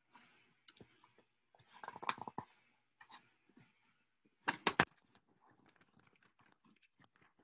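Paper workbook being shifted and its page turned: light rustles and clicks, with a quick run of sharper crackles about halfway through.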